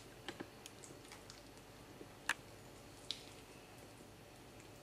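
Silicone spatula stirring thick, wet icing of powdered sugar and egg white in a glass bowl: faint squishing with scattered light clicks against the glass, two of them sharper, about halfway through and a little after.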